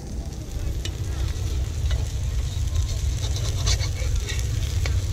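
Savory crepe batter sizzling in a hot wok, with a metal spatula scraping and tapping against the wok several times as it loosens the crepe's crisp edge, over a low steady rumble.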